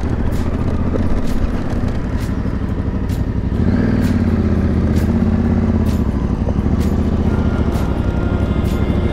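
Adventure motorcycle engine running at low speed, picking up revs about three and a half seconds in, with short sharp clicks scattered over it.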